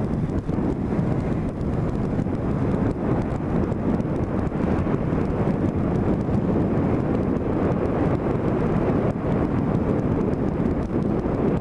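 Motorcycle riding at road speed: steady engine and road noise with wind buffeting the microphone.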